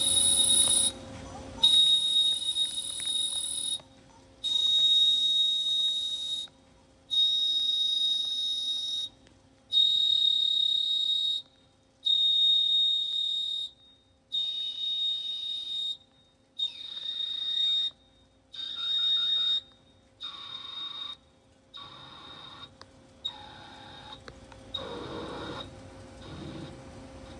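CNC lathe rough turning a metal bar in a G71 canned cycle: each pass of the roughing tool gives a steady high-pitched cutting tone with hiss, broken by short quiet gaps as the tool retracts and steps in. There are about a dozen passes, growing shorter and quieter toward the end, over a faint steady machine hum.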